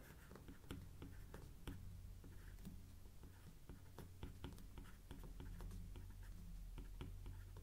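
Faint, irregular ticks and light scratches of a stylus writing on a tablet screen, over a low steady hum.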